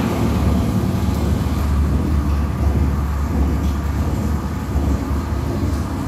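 Live electronic sound instruments playing a steady, loud, low rumbling drone with a rough, noisy grain.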